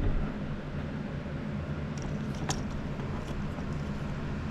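Steady low machine hum with a few light clicks, about two and a half and three and a half seconds in.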